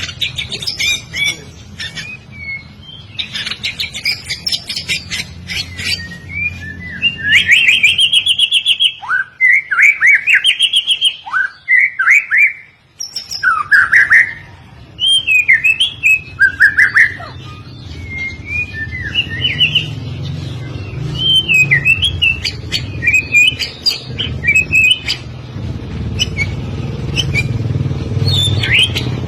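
White-rumped shama singing a long, varied song of loud sweeping whistles broken by fast chattering phrases. A low rumble runs underneath and grows louder in the second half.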